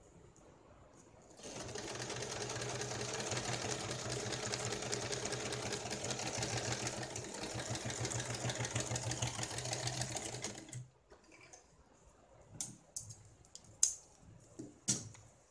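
Electric home sewing machine running at a steady speed, stitching through fabric. It starts about a second and a half in and stops after about nine seconds, followed by a few sharp clicks near the end.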